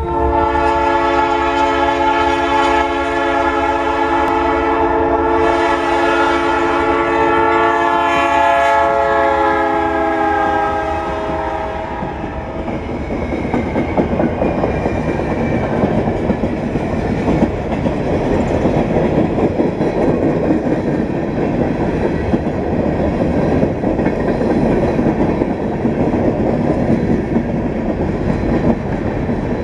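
Freight train locomotive's air horn sounding one long blast for about eleven seconds, its pitch sagging slightly as the engine goes by. The freight cars then roll past with a steady rumble and clickety-clack of wheels on the rails.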